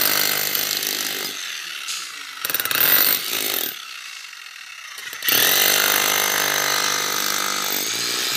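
Handheld electric demolition hammer breaking up a concrete floor, its motor running in three bursts with short pauses between, the last and longest starting about five seconds in.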